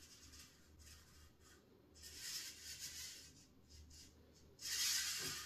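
Faint scraping sounds: a soft scrape about two seconds in and a louder one near the end.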